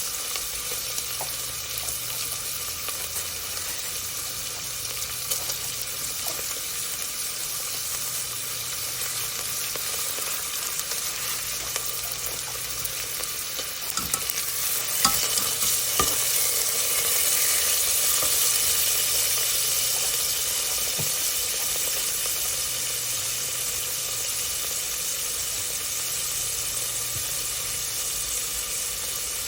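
Stew ingredients sizzling as they fry in the cooking pot, a steady crackling hiss. About halfway through a few sharp clicks of a utensil sound, and the sizzling grows louder for several seconds before settling.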